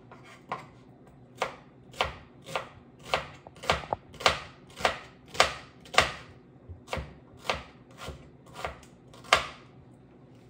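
Kitchen knife slicing a red onion thin on a cutting board: a steady run of sharp knocks, about two a second, as the blade strikes the board, stopping about a second before the end.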